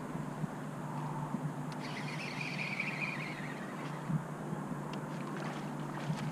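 Bow-mounted electric trolling motor running with a steady low hum. A brief higher hiss comes about two seconds in, and a few light clicks near the end.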